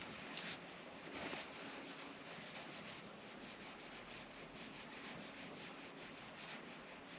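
Fishing reel being cranked during a retrieve: a faint, even rasping made of quick, regular ticks.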